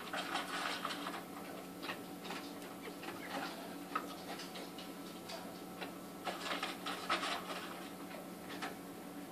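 Tissue-paper packing rustling and crinkling, with small clicks and taps from a clear plastic spider pot being handled, in two busier spells near the start and about two thirds of the way through. A faint steady hum runs underneath.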